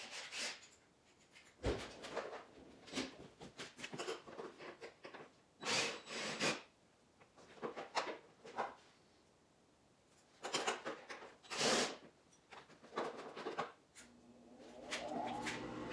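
Plastic ATV fender panels being pulled and worked loose: scattered scrapes, rubs and knocks of stiff plastic against the frame. Near the end a steady whirring hum starts up.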